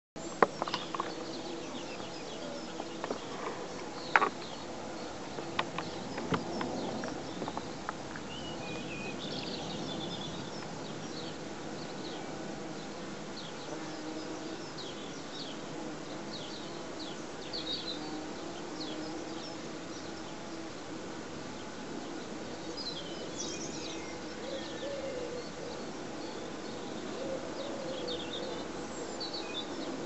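Bumblebees buzzing as they circle agitated outside their nest, not going in, with a wavering hum. Birds chirp in the background, and a few sharp clicks sound in the first few seconds.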